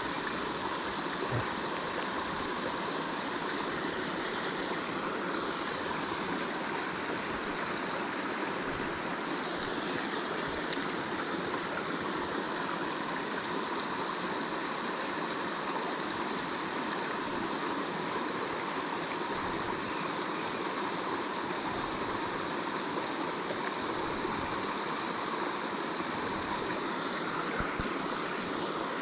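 Small creek running over a rocky riffle into a pool: a steady rush of water.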